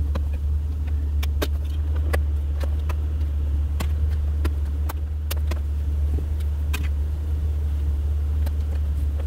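Light plastic clicks and taps, about a dozen spread through, as a red reflector is worked and pressed into a Jeep Grand Cherokee ZJ's plastic door panel by hand. A steady low hum runs underneath.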